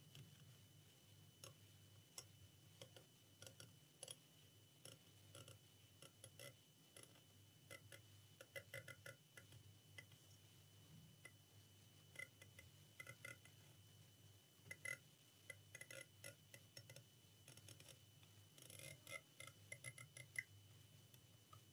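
Faint, irregular small clicks of metal tweezers prodding the pins of a laptop's DDR4 RAM socket, checking for loose pins, with a denser run of clicks near the end. A faint steady high whine and low hum lie underneath.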